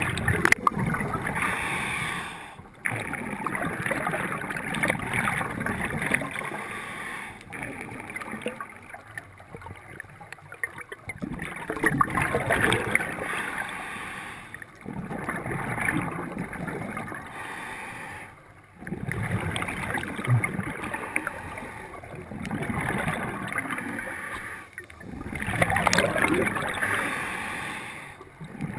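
Scuba diver breathing through a regulator underwater: repeated breath cycles of rushing, bubbling noise every few seconds, separated by brief pauses.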